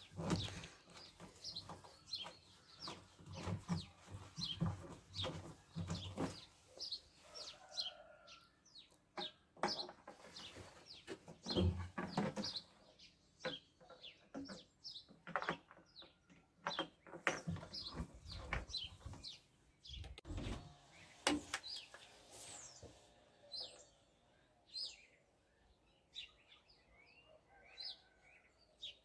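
Small birds chirping in many quick, short calls, over irregular knocks and clunks of handling a plastic canister and tools at a metal workbench.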